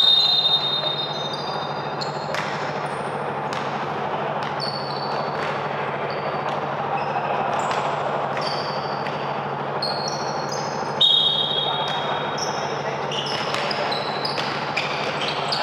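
Basketball game in play: sneakers squeaking on the court and a ball bouncing, over a steady low hum. A louder, longer squeal comes about eleven seconds in.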